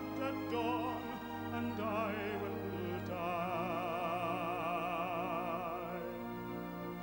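Background music: a singer holding long notes with wide vibrato over orchestral accompaniment, one note held for about three seconds midway.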